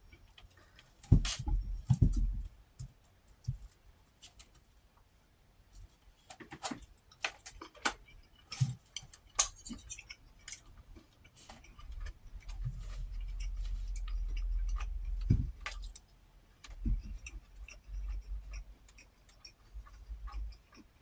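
Close-miked eating: scattered wet clicks and smacks of chewing and utensils, with a few seconds of low rumbling past the middle.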